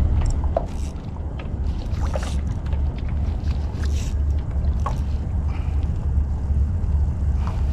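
Wind rumbling steadily on the microphone aboard a fishing kayak, with small splashes and scattered knocks and clicks.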